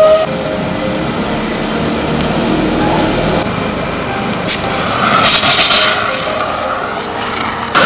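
A heavy truck's engine running, with a short hiss of air brakes about halfway through, as a siren cuts off at the very start.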